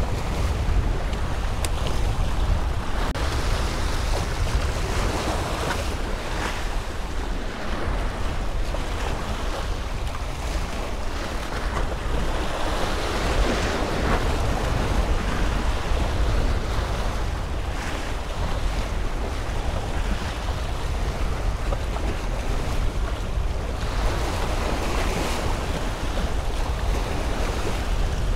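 Small waves washing and breaking against jetty rocks, the surf swelling louder about three times. Steady wind buffets the microphone as a low rumble underneath.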